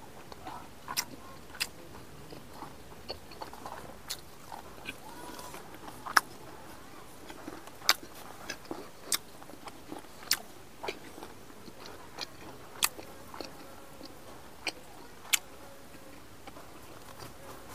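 A man chewing meat and rice close to a lapel microphone, with sharp, wet mouth smacks and clicks every second or so.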